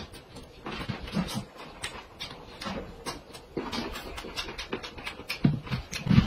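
A man chewing dumplings and smacking his lips noisily, with many short wet mouth clicks. A few short low hums come near the end.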